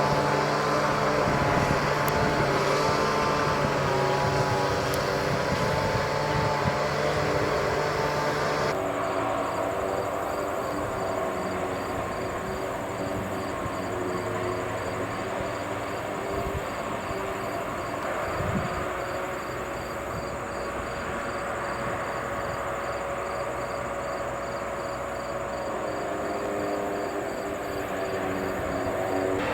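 Harvesting machinery running steadily with an engine hum; the sound shifts abruptly about a third of the way in, after which a faint regular ticking runs at about two ticks a second.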